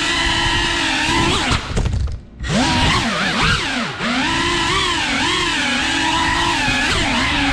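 FPV quadcopter's brushless motors and propellers whining, the pitch rising and falling constantly. About two seconds in the whine drops away briefly, then sweeps back up in quick rising glides.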